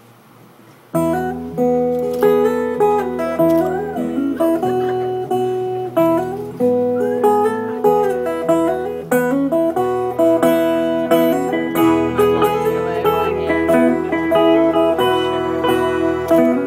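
A live acoustic folk-rock band starts the instrumental intro about a second in: a fast picked banjo melody over strummed acoustic guitar and a bass line.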